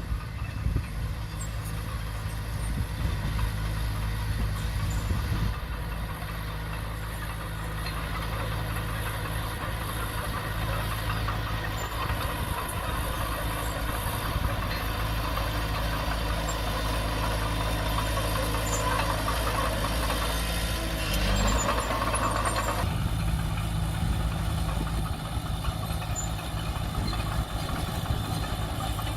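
Komatsu D20P crawler bulldozer's diesel engine running steadily. A louder noisy stretch builds from about the middle and cuts off sharply about three quarters of the way through.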